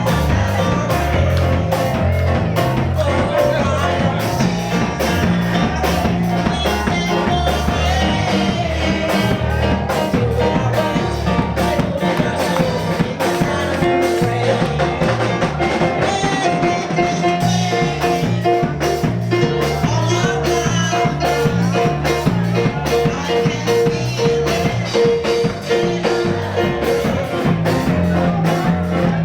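Live church band playing an upbeat gospel groove on drum kit, bass and guitar, with some singing over it.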